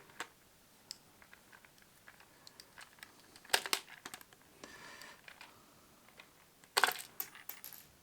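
Small clicks and taps of a plastic toy's parts and a steel multi-tool being handled, with two louder sharp clicks about three and a half and seven seconds in and a brief scrape near five seconds.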